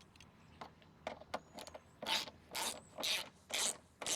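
Hand ratchet working a screw into the mower's plastic cover: a few light clicks, then about two seconds in four short rasping ratchet strokes about half a second apart, tightening the screw until it snugs up.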